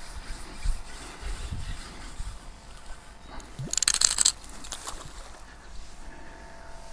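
Wind rumbling on the microphone over a faint steady hum from nearby construction machinery. About four seconds in comes a loud, harsh burst of noise lasting about half a second.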